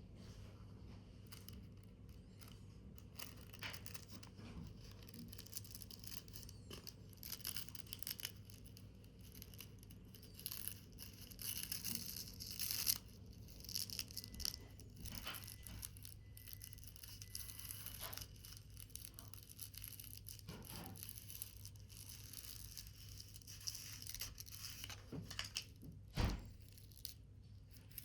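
Paper being handled and torn, short scratchy rustles coming on and off, with a single sharper knock near the end and a steady low hum underneath.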